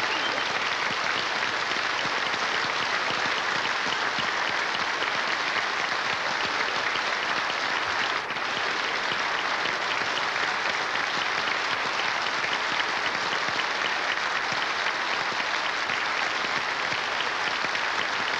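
Large audience applauding steadily and at length, a dense unbroken clapping.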